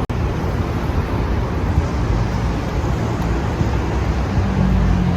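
Steady low rumble of road vehicle noise, with a low steady hum joining about four seconds in.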